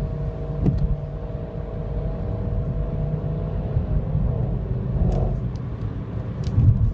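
Mercedes-Benz C63 AMG Edition 507's 6.2-litre V8 exhaust rumbling at low, steady cruising speed, heard from inside a following car. There is a short, louder burst of exhaust near the end.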